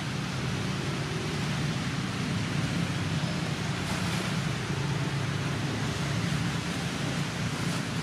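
Steady background noise with a low droning hum underneath, unchanging throughout.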